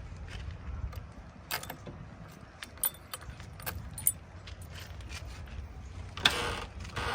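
Backhoe loader working: a steady low diesel rumble under scattered metallic clanks and rattles from the machine's linkage. About six seconds in, a sudden loud burst begins, turning into a pitched sound.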